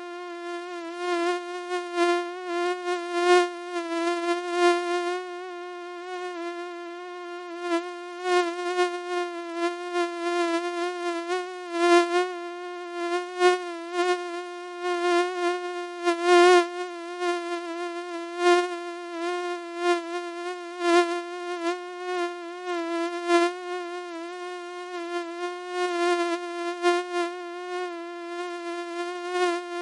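Mosquito wing whine: a continuous thin buzz held at one pitch with a slight waver, swelling and fading in loudness as if flying close and away.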